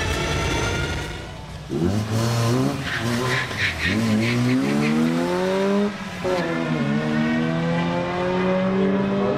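Tesla electric drive motor whining and climbing steadily in pitch under full-throttle acceleration from the drag-strip launch. After a cut about two seconds in, a car engine heard from trackside, rising in pitch through the gears with a shift about six seconds in.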